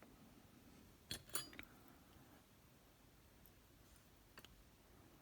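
Near silence broken by a quick cluster of small metallic clicks about a second in and a couple of fainter ticks later: small metal lock parts and tools being handled as a dimple lock is taken apart.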